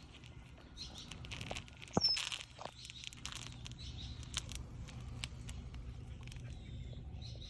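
Scattered crunches and clicks of dead fish flies (mayflies) being crushed underfoot, with a louder burst about two seconds in, alongside a bird chirp and a steady low hum.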